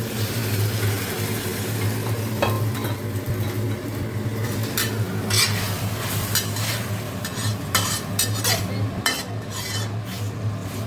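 Pork stir-frying in hot oil in a pan: steady sizzling, with a spatula scraping and knocking against the pan, the strokes coming more often from about halfway on.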